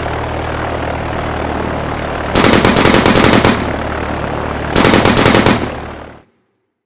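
Biplane engine running steadily, with two bursts of machine-gun fire of about a second each, the first some two seconds in and the second about two seconds later; the engine then fades out near the end.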